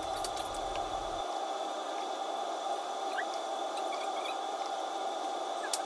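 Steady hum of a kitchen fan, with faint clicks and soft squishing as thick cooked maja blanca (corn and coconut-milk pudding) is scooped from a pan into a plastic container.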